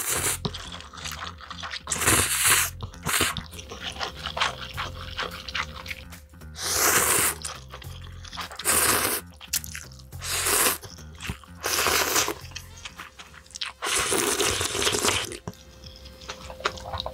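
Noodle slurping: a person sucking up spicy ramen noodles in several long, noisy slurps spaced a second or more apart, over background music.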